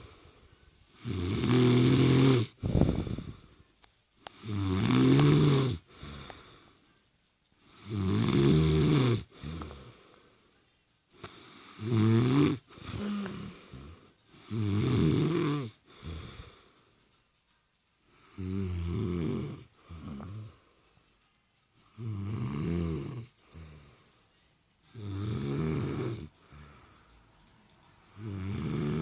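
A woman snoring in her sleep: a loud, rattling snore about every three and a half seconds, each followed by a quieter breath.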